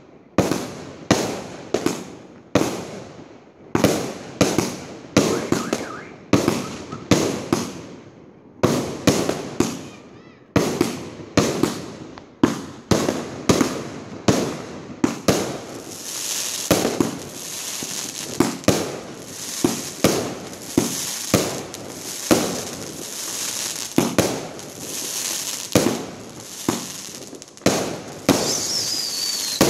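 A 250-shot fireworks cake firing shot after shot, about two bangs a second, each fading quickly. About halfway through a continuous hiss joins the bangs, and near the end a falling whistle sounds.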